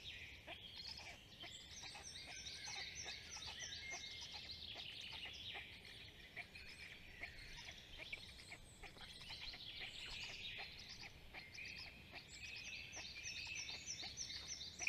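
Several songbirds singing at once, overlapping songs with runs of quick repeated high notes, over a faint low steady hum.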